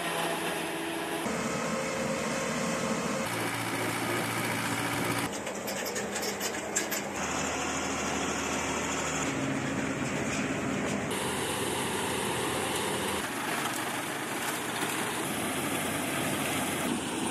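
Diesel farm machinery running in the field, tractors and combine harvesters working at harvest. The steady engine noise changes abruptly every two to four seconds as one machine gives way to the next.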